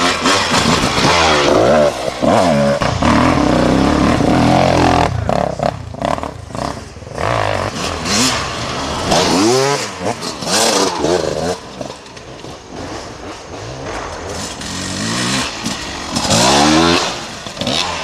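Several off-road dirt bike engines revving and changing gear as riders pass one after another. Each engine climbs in pitch and grows louder as it nears, then fades as it goes by.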